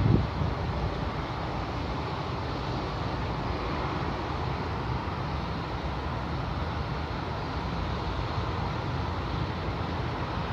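A steady low rumbling noise with no clear pitch, with a short low thump right at the start.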